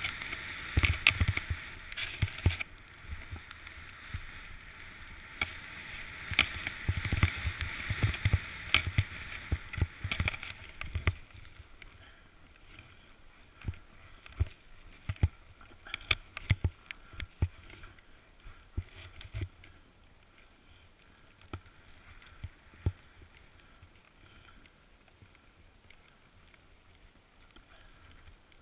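Snowboard sliding through deep powder snow: a steady hiss of the board through the snow, mixed with low thumps and sharp clicks. From about eleven seconds in it falls much quieter, leaving scattered clicks and knocks.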